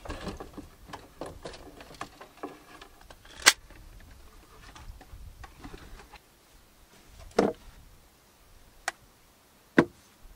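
Small items being handled and packed into a wooden storage box: light rustling and clicking, then four sharp knocks of things set down against the wood, the loudest about three and a half seconds in.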